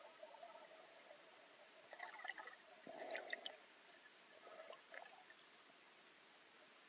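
Near silence: faint muffled water noise picked up by a submerged camera, with a few brief gurgles and crackles between about two and five seconds in.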